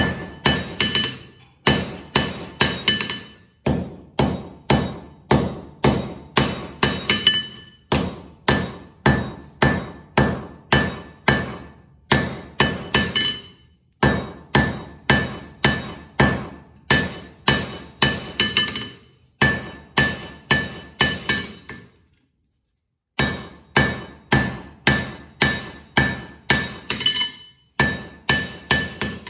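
Hand hammer striking hot file steel on an anvil, forging it down to shape: a steady rhythm of about three ringing blows a second, broken by short pauses, with a longer stop about 22 seconds in.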